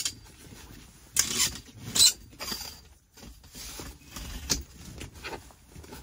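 Metal pole of a TUFF Trek roof-top tent being handled and clipped onto the tent frame: scattered clicks, scrapes and canvas rustles, the two loudest about one and two seconds in.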